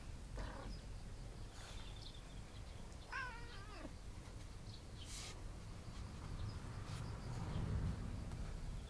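A domestic cat meowing once, a short wavering call about three seconds in.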